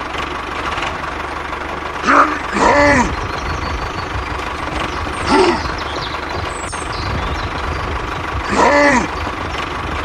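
Engine of a toy walking tractor chugging steadily, with a knocking low rumble that gets heavier about two seconds in. Over it, four short voice-like cries that rise and fall in pitch.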